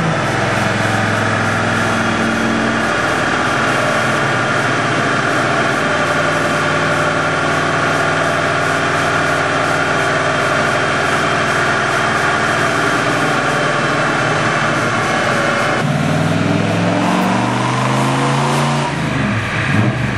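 Turbocharged Ford 5.0 V8 of a 1988 Mustang running on a chassis dyno, held at a steady speed for most of the time, then winding down with its pitch falling about 16 seconds in.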